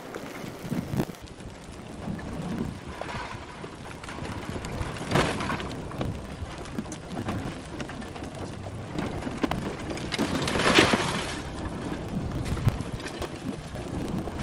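Advancing aa lava flow front engulfing a burning house: a steady crackling and clattering of tumbling lava blocks and fire, with two louder rushing, hissing swells about five and eleven seconds in.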